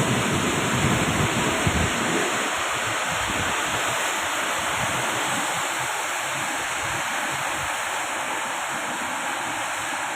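Heavy rain falling in a steady hiss, with wind buffeting the microphone for the first couple of seconds.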